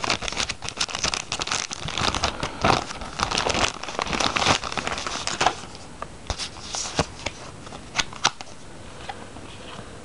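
Paper and plastic packaging of a boxed USB Wi-Fi adapter crinkling and rustling as it is handled, dense for the first five seconds or so, then a few separate clicks and taps.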